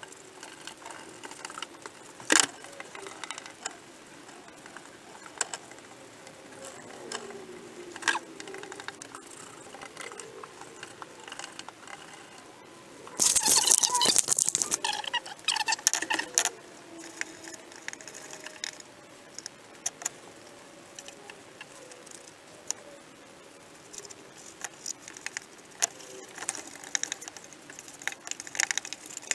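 Paintbrush dabbing and scraping zinc-rich primer onto a welded steel car floor pan, with scattered light clicks and taps. A little before halfway, a louder spell of rustling and knocking lasts about three seconds.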